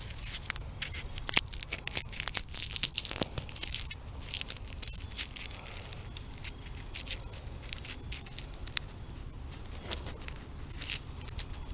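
A soybean pod being worked open between the fingers close to the microphone: dry crackling and crinkling, dense for the first few seconds and then sparse, with a few small crackles again near the end.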